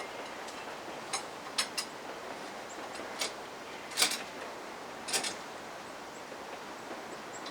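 Scattered sharp metal clicks and knocks, about six in all with the loudest about four seconds in, as the engine and transmission assembly is shifted and worked into line with the clutch.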